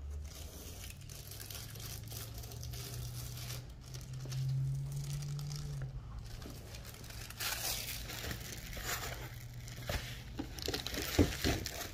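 Plastic packaging bag crinkling as it is handled, with louder rustles in the second half and a sharp tap near the end, over a low steady hum.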